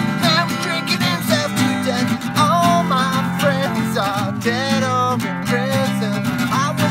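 A man singing while strumming an acoustic guitar: steady strummed chords under a wavering sung melody.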